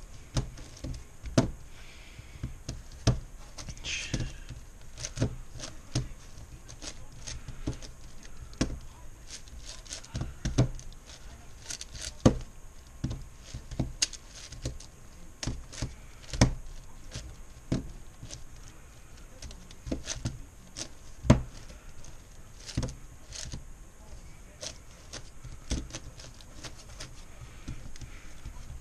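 A MoYu Meilong 10x10x10 M plastic speed cube being turned one-handed: irregular sharp clicks and clacks as its layers are twisted and snap into line, one to a few each second, during edge pairing.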